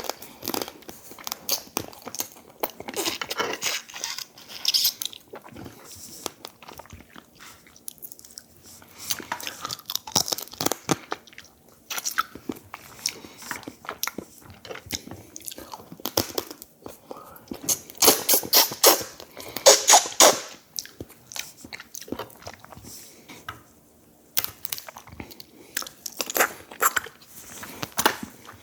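A person chewing and crunching food close to the microphone, in irregular spells of crunches and clicks with short pauses; the loudest spell comes about two-thirds of the way in.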